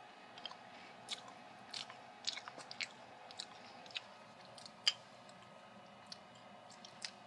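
A crunchy chocolate chip cookie being chewed: scattered sharp crunches and mouth clicks, the loudest about five seconds in.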